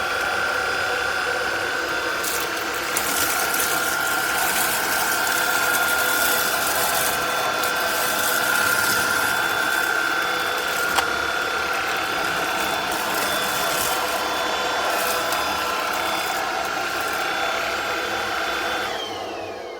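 NADALY cordless stick vacuum running with a steady high motor whine and scattered clicks, then switched off near the end, the whine falling in pitch as the motor spins down.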